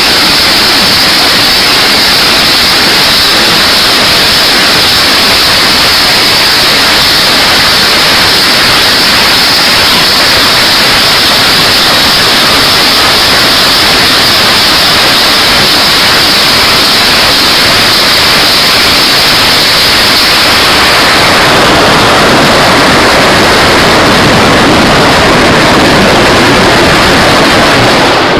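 BM-21 Grad multiple rocket launchers firing salvoes of 122 mm rockets: a continuous, very loud roar of rockets launching one after another, with no separate bangs, overloading the microphone. It grows a little louder about three quarters of the way through and cuts off abruptly near the end.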